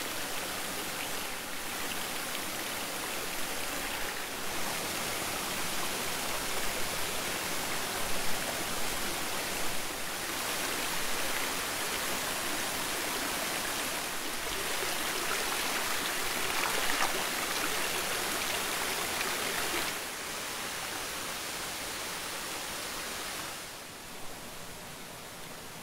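Mountain stream rushing over rocks below a waterfall: a steady, even water noise. Its level steps down about 20 seconds in and again shortly before the end.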